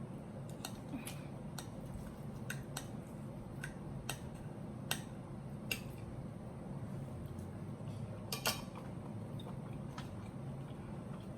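Cutlery clinking against a dinner plate while eating: about a dozen scattered sharp taps, the loudest a double clink about eight and a half seconds in, over a faint low hum.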